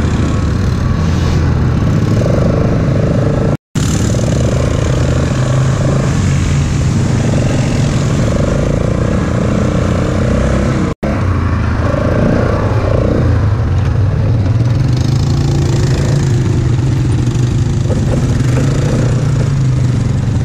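ATV engine running steadily under way on a dirt trail, heard close up from the riding quad itself. The sound drops out for a split second twice.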